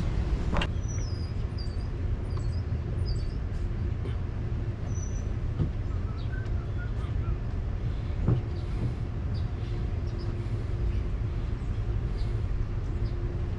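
Steady low rumble of vehicle noise, with a few light knocks and some brief high chirps early on.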